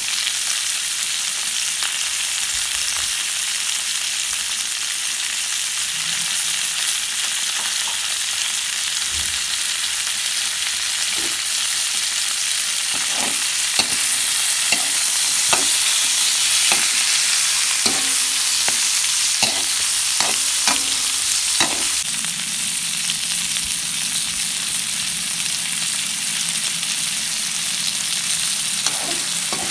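Food sizzling steadily as it fries in a hot pan, stirred with a cooking utensil that clicks and knocks against the pan in a run through the middle stretch.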